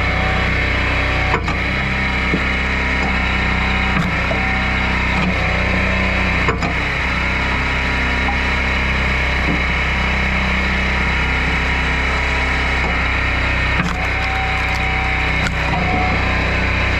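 An engine running steadily as firewood is split on a log splitter, with sharp cracks and knocks of the wood every few seconds at irregular spacing.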